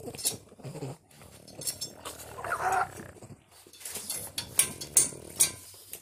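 French Bulldog whining and grunting in frustration at a female in heat kept on the other side of a gate, with a higher pitched whine about halfway through. Several sharp clicks come in the second half.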